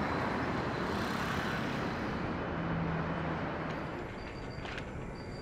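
Steady outdoor rumble of vehicle traffic, an even wash of noise with a brief low hum a little past halfway.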